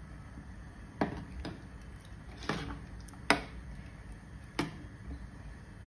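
Metal ladle stirring thick rice porridge in a stainless steel pot, knocking against the pot about five times at uneven intervals, over a low steady hum.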